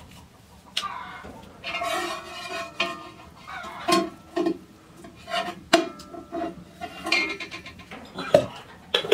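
Steel kitchenware clinking and knocking: a steel mug and a ladle striking the rim and sides of a large steel cooking pot while oil is poured in, with several sharp clinks, some of them briefly ringing.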